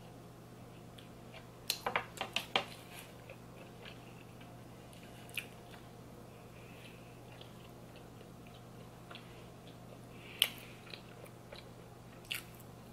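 Close-up chewing and wet mouth clicks from eating small pastry bites by hand: a quick cluster of clicks about two seconds in, then single ones now and then, over a low steady hum.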